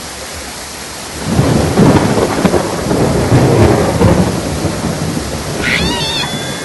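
Heavy rain hissing steadily, with a loud rolling rumble of thunder starting about a second in and lasting about three seconds. Near the end a short high, wavering tone sounds over the rain.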